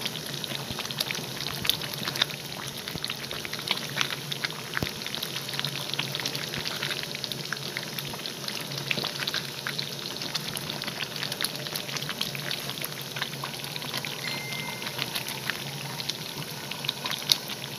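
Thick kaldereta stew sauce bubbling in the pan, a dense run of small irregular pops, as it simmers down on low heat to reduce.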